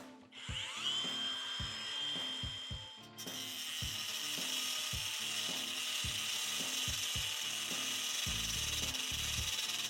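Ridgid Octane 18V brushless cordless angle grinder with a metal cut-off wheel spinning up in a rising whine about a second in and running at a steady high whine. From about three seconds in the wheel cuts into iron, a loud steady grinding hiss over the whine.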